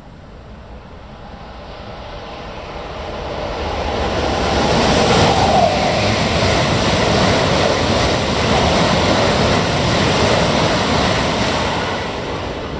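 E4 series Max double-decker Shinkansen, a 16-car coupled set, passing through the station at high speed without stopping. A rush of wheel and air noise builds over the first few seconds and holds steady and loud while the cars go by, easing slightly near the end.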